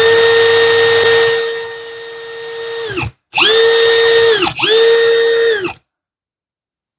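Parkside Performance PABS 20-Li C2 brushless cordless drill running free at full speed with no load, a steady whine. It runs about three seconds, stops, then is triggered twice more in short bursts, each spinning up and winding down quickly.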